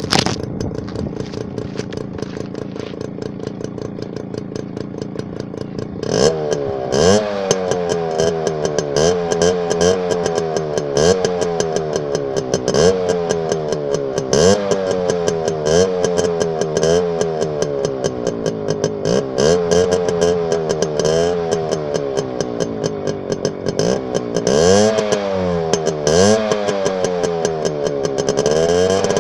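Suzuki engine idling steadily, then from about six seconds in revved again and again in short blips, each rising quickly in pitch and falling back to idle.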